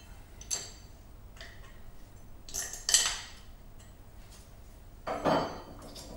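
Metal spark plug spanner clinking against the small Honda QA50 engine while the spark plug is refitted: a few separate sharp metallic clinks, the loudest about three seconds in, then a duller knock a little after five seconds.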